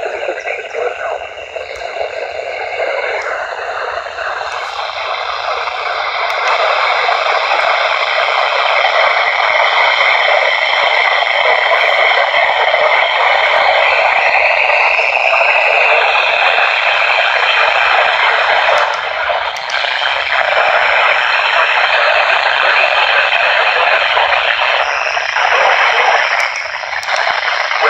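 FM static hiss from a weather-band radio receiver tuned to a channel with no readable signal, steady and loud, with faint steady whistling tones under the noise.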